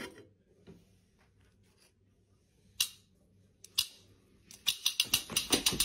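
Sharp clicks from kitchen utensils being handled at an air fryer basket: a few single clicks spaced out, then a quick run of rapid clicks near the end.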